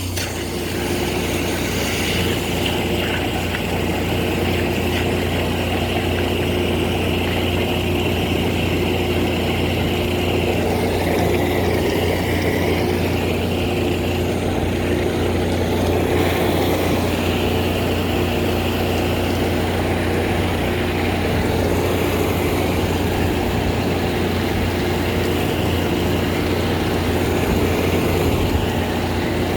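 High-pressure drain jetting machine running steadily: a constant engine-and-pump drone under an even hiss of water, as the jet clears lime scale from the pipe.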